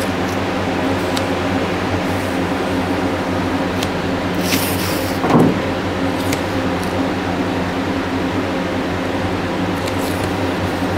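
Steady machine hum with several low droning tones underneath. About four and a half seconds in comes a short rasp of masking tape being pulled off its roll, with a few faint ticks around it.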